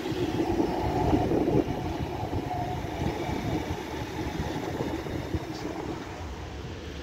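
Tram rolling along its rails, a steady low rumble that slowly grows quieter.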